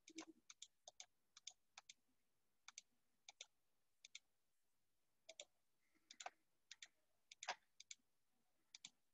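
Computer mouse buttons clicking faintly, about fifteen quick press-and-release clicks at irregular intervals.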